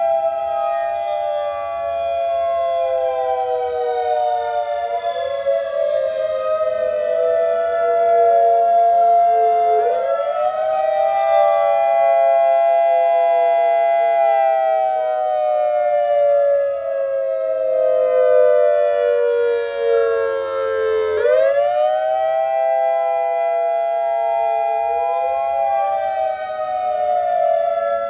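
Federal Signal 2001-130 rotating electromechanical warning siren sounding a steady tone during a test. Its pitch slides slowly down and then jumps back up, twice.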